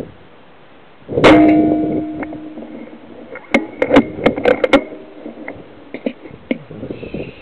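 A single rifle shot about a second in, with a ringing tail, followed a couple of seconds later by a quick run of sharp clicks and knocks.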